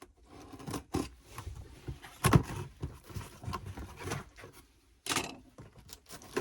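Blade slicing through packing tape on a cardboard box, with cardboard scraping, tearing and rustling as the box is opened. A thump a little over two seconds in is the loudest sound.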